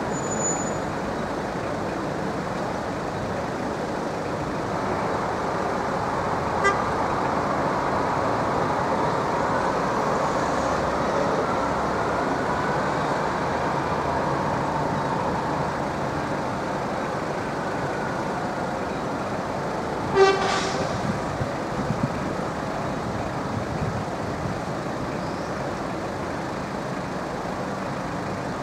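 Steady vehicle noise that swells gradually through the middle and then eases, with a short, loud horn toot about two-thirds of the way in.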